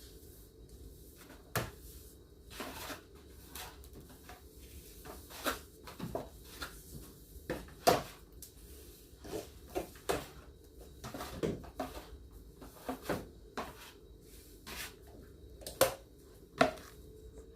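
Household objects being handled and set down during room tidying: a string of irregular knocks and clatters, roughly one a second, the loudest about halfway through and near the end.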